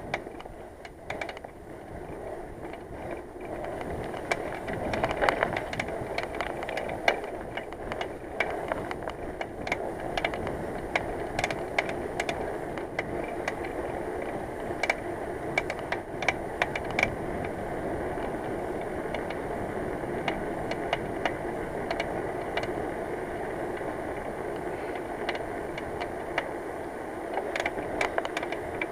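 Bicycle rolling along a road with a steady grinding rumble and irregular clicks and rattles. The rider points to this noise as the rear hub playing up; its bearing grease had turned to black sludge.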